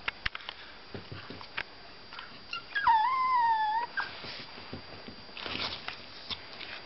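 A young Pomeranian gives one high, drawn-out whine lasting about a second, around the middle. A few light clicks come before and after it.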